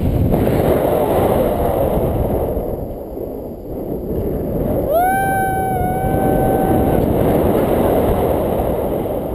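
Wind rushing over an action camera's microphone in tandem paraglider flight, a steady buffeting noise. About five seconds in, a high whoop slides up and is held for about two seconds, broken once.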